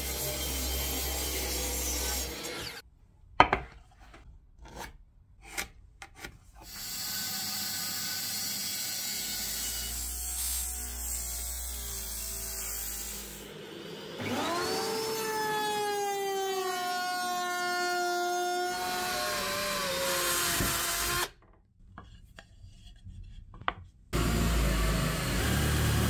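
Woodworking power tools one after another: a mitre saw cutting through a wooden board, a few clicks, then a long stretch of steady noise. A router motor then spins up with a rising whine that holds steady for several seconds and stops sharply. Near the end an electric drill bores into a wooden board.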